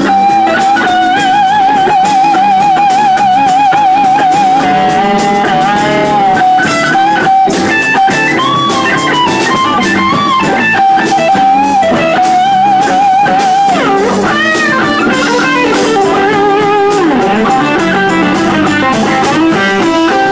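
Live rock band playing an instrumental break: an electric guitar plays a lead over bass guitar and drums. The lead is made of long held notes that waver in pitch, and later of lines that slide up and down.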